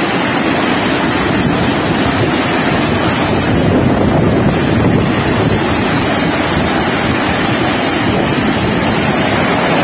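Muddy floodwater and debris rushing down a street in a flash flood, a loud, steady rush of water with no let-up.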